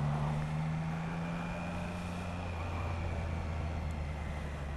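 Triumph Trident 660's inline three-cylinder engine running under way, a steady low hum whose pitch sinks slightly before easing off about halfway through.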